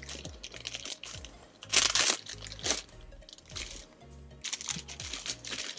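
A clear plastic parts bag crinkling in the hands in several short bursts, the loudest about two seconds in, over background music with a deep bass line.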